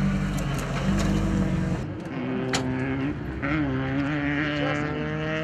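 Vehicle engine running steadily with a low hum. About two seconds in, the sound changes abruptly to a thinner, slightly wavering engine tone, with a single sharp click shortly after.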